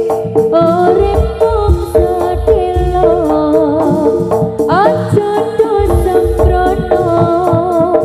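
Live jaranan music from a Javanese ensemble: a high wavering melody over a steady chime-like pitch, driven by kendang drums and gongs, with deep drum beats coming in about a second in. A quick rising sweep cuts across the melody about five seconds in.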